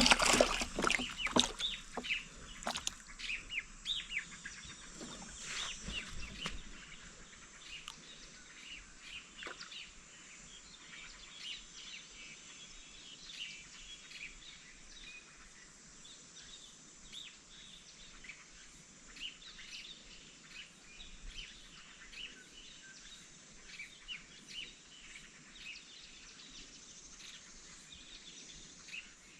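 Small birds chirping repeatedly over a faint steady hiss. A run of sharp knocks and clatter comes in the first six or seven seconds.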